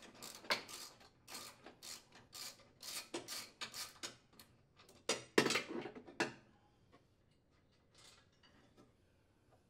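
Hand ratchet and socket clicking in short bunches of strokes as the steering support mounting bolts are loosened and unthreaded, with light metal clinks. The clicking stops about six seconds in, leaving only faint handling sounds.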